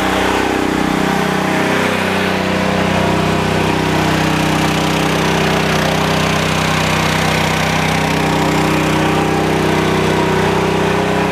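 PowerMax XP8500E portable generator's gasoline engine running loud and steady under heavy load, putting out about 5,000 watts to charge a battery bank. It is working the hardest it ever has.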